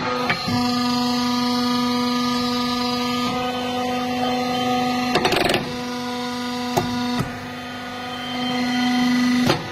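Steady hum of a workshop press's motor while it fits a handle into a sledgehammer head, with a few sharp knocks and a brief noisy rush about five seconds in.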